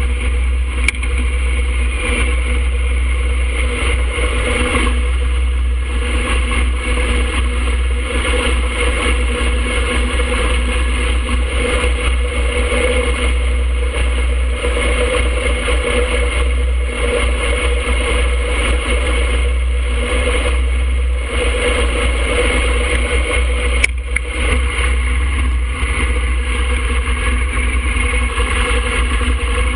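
2007 Harley-Davidson Fat Boy's air-cooled Twin Cam 96 V-twin running steadily under way, heard from a camera mounted on the bike with a constant low rumble underneath. One sharp click late on.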